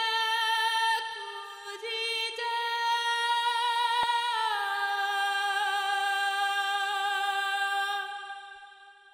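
Wordless singing by a high, woman's voice, holding long sustained notes with a slight waver; the pitch steps down about halfway through and the note fades out near the end.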